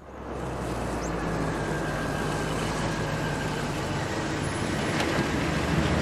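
Engine of a 1950s sedan running as the car drives along the street, its low hum growing a little louder as it comes close and passes.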